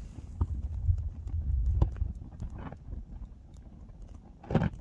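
Low, uneven rumble of wind on the microphone, broken by a few sharp cracks or knocks, with a louder one near the end.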